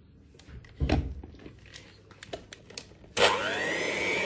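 A few light knocks and a dull thump about a second in, then near the end a Katomo electric hand mixer switches on abruptly and runs steadily with a high motor whine, its beaters whisking eggs and sugar in a bowl.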